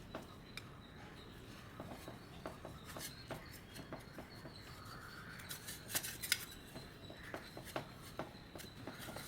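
Metal spatulas tapping, clicking and scraping on an ice cream roll cold plate, in quiet irregular strokes with a louder cluster about six seconds in.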